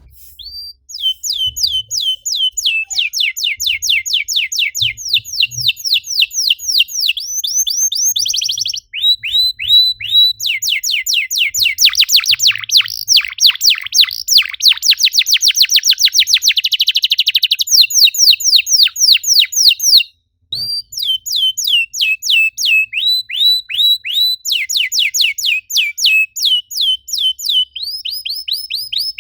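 Domestic canary singing in fast trills of repeated down-sweeping notes. The trills change speed and pitch from one run to the next and tighten into a very fast rolling run in the middle. The song breaks off briefly about half a second in and again about twenty seconds in.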